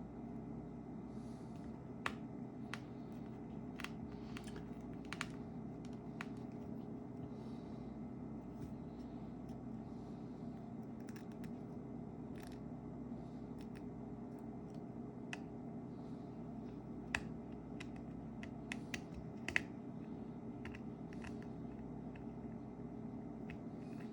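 Scattered small, sharp clicks and taps of hand tools and small parts being handled while working on an iPhone 7 Plus, over a steady low background hum.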